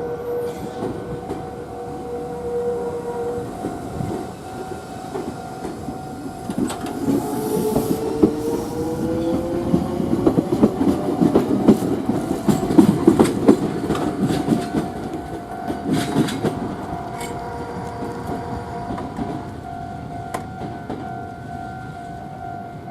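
Meitetsu 6800 series electric train moving slowly through a station yard on a shunting run. Its motor tone rises in pitch as it gets going, and its wheels click over rail joints and points. The sound is loudest in the middle as it passes, over a steady hum.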